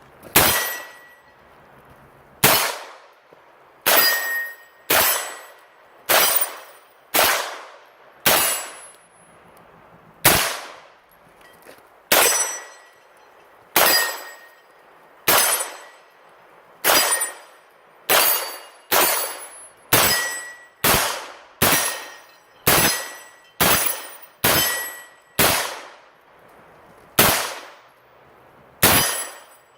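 PSA 9 mm pistol fired shot after shot, about two dozen rounds at an uneven pace of roughly one every one to two seconds, quicker in the second half, each crack trailing off in a short echo. Several hits are followed by the clear ring of a steel target.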